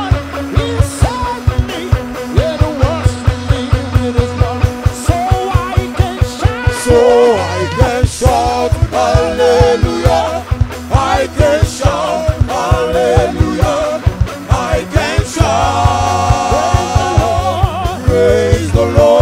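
Live praise music from a church band: a fast, steady drumbeat of about four strokes a second over a bass line, with singing.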